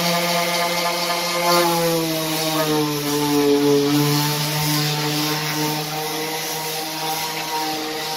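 Electric random orbital sander running on the primed plywood top of a speaker cabinet: a steady motor hum with the scratchy hiss of sandpaper, its pitch sagging slightly about three seconds in and then recovering.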